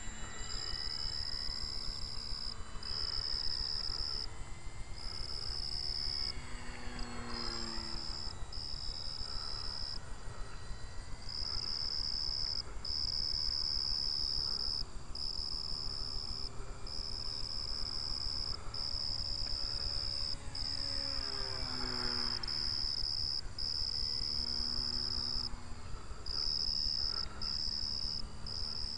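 Insects singing a steady high-pitched trill in long pulses with short breaks, the loudest sound throughout. Underneath, the motor of a small radio-controlled P-40 model plane drones faintly, its pitch falling as it passes, twice: about a quarter of the way in and again about three quarters of the way in.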